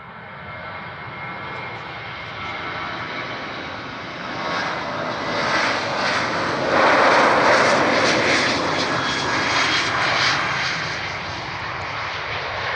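A Boeing 737-800's twin CFM56-7B turbofan engines at takeoff thrust as the airliner rolls down the runway past the listener. The jet noise swells to its loudest about seven seconds in, then eases a little as the aircraft rotates and lifts off near the end.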